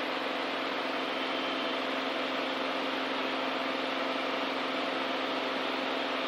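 Steady drone of a Beechcraft A36 Bonanza's six-cylinder engine and propeller at climb power, heard inside the cockpit.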